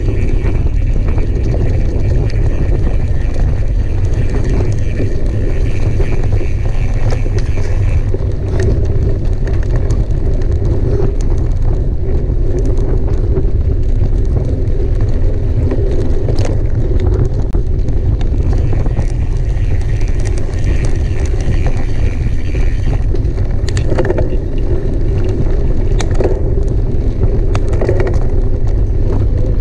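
Mountain bike being ridden at speed: a steady rush of wind on the microphone and tyre rumble, with now and then a short click or rattle from the bike.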